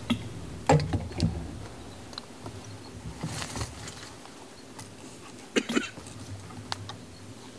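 Hunting gear being handled and packed up: scattered knocks and clicks with a brief rustle of clothing or straps around three and a half seconds in, and a pair of thumps near six seconds.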